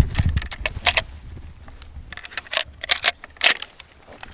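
A run of light metallic clicks and jangles as a Swiss K31 straight-pull rifle and its sling are handled, with rustling handling noise in the first second as the shooter settles into a firing position.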